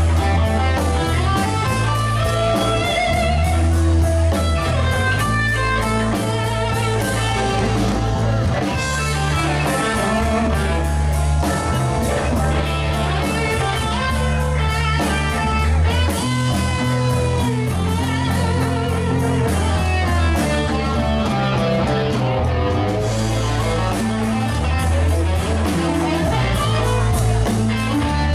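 Live rock band playing: electric guitar lines over bass guitar and drum kit, a steady loud groove with a blues-rock feel.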